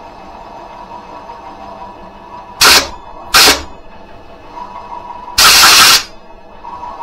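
Three blasts of compressed air from an air nozzle, two short ones and then a longer one of about half a second, blowing chips out of a chainsaw cylinder that is spinning in a mini lathe. Under them the lathe runs with a steady faint whine.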